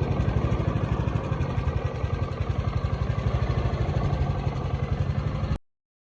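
Honda lawn mower engine running steadily with a fast, even putter, then cut off abruptly near the end.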